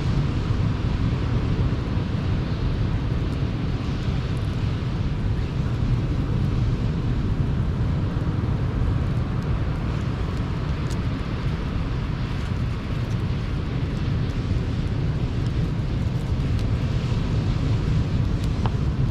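Sea surf breaking on the shore as a steady low rumble, with a few faint crackles from a campfire.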